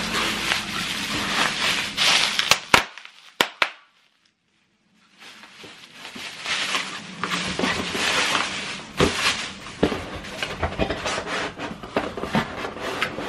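Bubble wrap crinkling and rustling as it is handled and pulled out of a cardboard box, with scattered sharp clicks; the sound cuts out for about a second near the middle.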